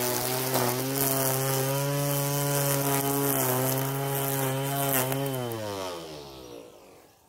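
Electric motor of an Ozito 18V cordless garden tool running at steady speed with a brief dip about half a second in, then winding down, its pitch falling as it fades out over the last two seconds.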